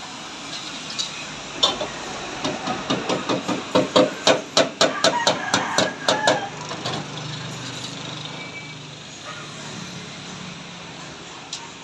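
Hammer striking metal in a quick run of blows, about four a second, each with a short metallic ring, stopping after a few seconds. A low steady hum follows.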